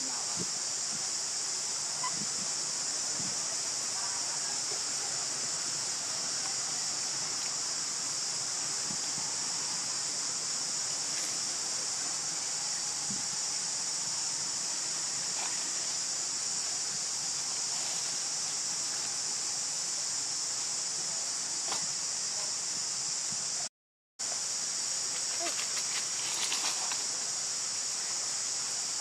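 Steady high-pitched drone of an insect chorus in the forest, unbroken and even in level, with a brief gap about two-thirds of the way through.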